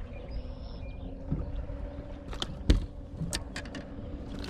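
Knocks and clicks from a just-landed largemouth bass being handled in a bass boat, the loudest a single thump about two and a half seconds in, over a steady low hum.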